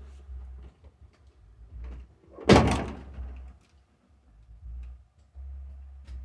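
A door slamming shut once, about two and a half seconds in, the loudest sound here, with intermittent low rumbling on the microphone around it.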